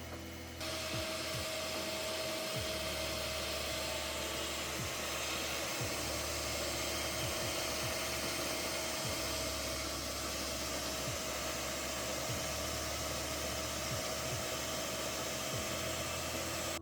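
Electric kitchen mixer switching on about half a second in and running steadily with a constant whine, mixing soaked fruit into cake batter.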